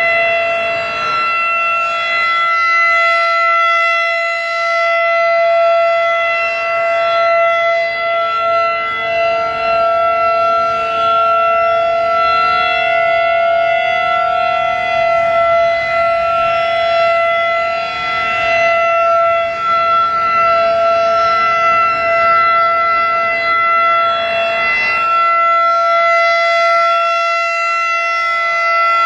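Federal Signal 2001-DC outdoor warning siren sounding the steady alert signal of a full test: a loud held chord of several pitches that swells and fades a little as the siren rotates.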